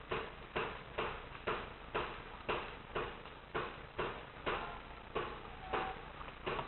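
Paintball marker firing steady single shots, about two a second, each sharp pop followed by a short echo off the walls of a large empty room.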